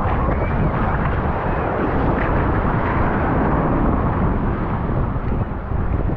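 Steady rushing noise of wind buffeting a GoPro's microphone, mixed with the wash of surf on the beach.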